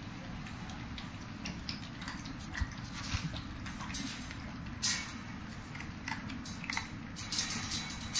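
Toy poodle puppies moving about on the plastic grid floor of a wire pen: scattered light clicks and rattles of paws and claws on the grid, the loudest about five seconds in and a quick run of them near the end.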